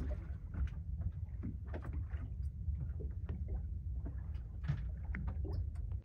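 Ambience on a boat at sea: a steady low rumble with small, irregular splashes of water lapping against the hull.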